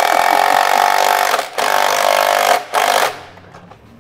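Cordless power tool whirring in three bursts, a long one, a shorter one and a brief final one, as hose clamps are run down on the new radiator's coolant hoses.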